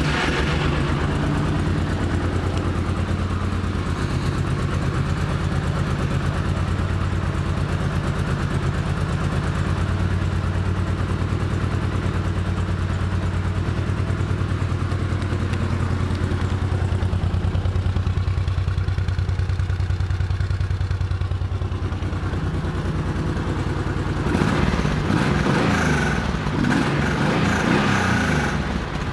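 A 2006 Honda VTX1800C's 1,795 cc liquid-cooled V-twin idles steadily just after start-up, then is revved a little for a few seconds near the end.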